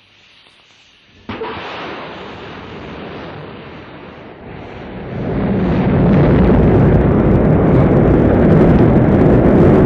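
Rocket engines igniting with a sudden burst of noise about a second in, then a continuous deep rumble that grows much louder about five seconds in.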